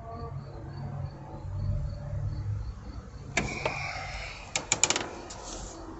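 Engine running with a steady low hum, and a few sharp, irregular clicks and clunks about three and a half to five seconds in.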